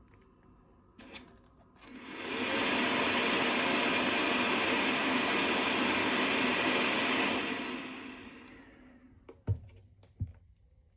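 Snore Circle YA50 Pro travel auto-CPAP's blower spinning up to a loud, steady rush of air with a faint high whine, holding for about five seconds, then winding down. Two sharp knocks come near the end.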